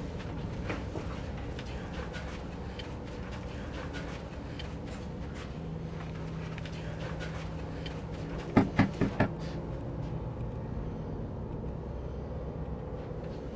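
Four quick, sharp knocks in a row a little past the middle, over a steady low hum.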